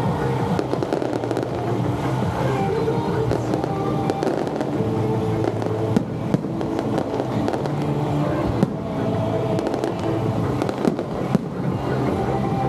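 Fireworks crackling and bursting continuously, with a few sharper single bangs about halfway through and again near the end, over music playing throughout.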